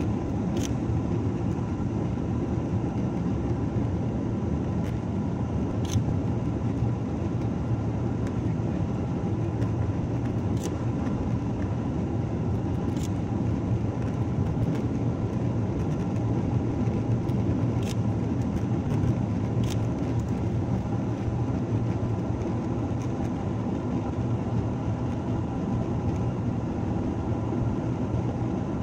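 Boeing 737-800 jet engines and rushing air heard inside the cabin during the climb after takeoff: a steady, even roar with a faint steady hum, and a few light ticks.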